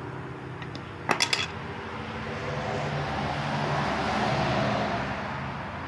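A small electronic signal box being handled and pried open: three or four sharp clicks in quick succession about a second in. A steady low hum runs underneath, and it swells and fades in the second half.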